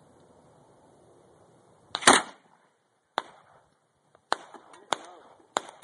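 Gunshots: five sharp cracks, the loudest and longest about two seconds in, then four more spaced about a second apart.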